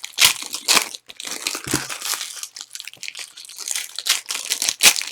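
Plastic wrapping on Panini Prizm trading card packs being torn and crinkled as they are ripped open, in quick irregular rustling bursts.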